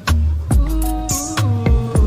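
Background music with a steady beat: drum hits about twice a second over bass notes and a held melody.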